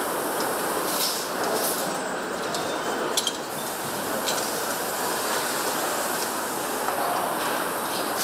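Engine assembly-line factory noise: a steady machinery hum with a few short metal clinks and clicks, the sharpest about three seconds in.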